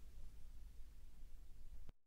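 Faint hiss and low rumble of the orchestral recording after the music has died away, ending in a sharp click just before the end, after which the sound cuts off to dead silence.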